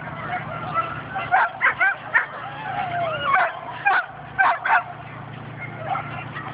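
An excited dog yipping and whining in quick high-pitched bursts, one call sliding down in pitch about three seconds in. A portable generator runs with a steady low hum underneath.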